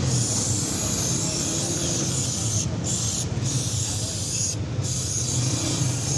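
Aerosol cleaner spraying through a thin extension straw into a removed throttle body to wash it, a steady hiss cut by three brief pauses around the middle. A steady low hum runs underneath.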